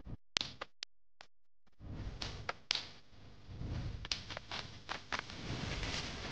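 A few sharp clicks in near silence, then from about two seconds in a steady background hiss of room noise with scattered light clicks and taps.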